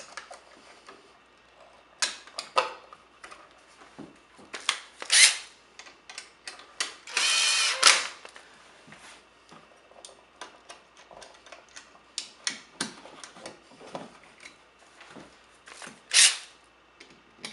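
Small clicks, scrapes and rasps of wires and a hand tool being worked as the circuit wires are fastened to a new dimmer switch. The longest rasp lasts about a second, some seven seconds in.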